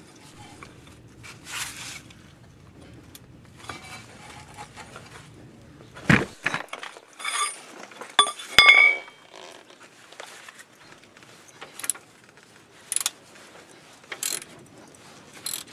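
Socket wrench working the castle nut on a Prius outer tie rod end: a loud metal clank about six seconds in, ringing metallic clinks over the next few seconds, then scattered sharp clicks near the end. The nut turns free, not seized.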